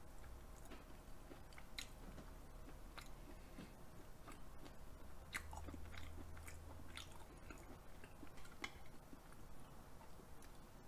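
Faint, wet mouth sounds of a person chewing soft raw food with the lips closed: small smacks and clicks every second or so.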